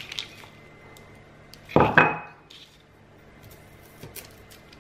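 A ceramic ramekin knocks down on the board with a short clinking ring about two seconds in, followed near the end by a few light knife taps on a plastic cutting board as crisp freeze-dried strawberries begin to be chopped.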